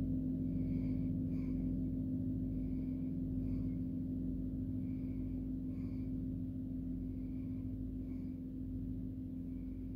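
Large gong left ringing after a strike: a steady low hum of several tones slowly dying away. Faint short high chirps recur about every second over it.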